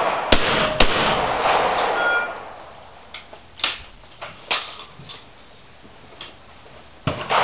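Two shotgun shots about half a second apart, a double fired at a clay target, with the reports ringing out for over a second. A few softer clicks and knocks follow as the gun is broken open and the spent cartridges are handled.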